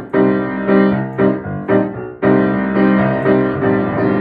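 Piano playing the instrumental introduction to a song: rhythmic chords, with a brief break about two seconds in.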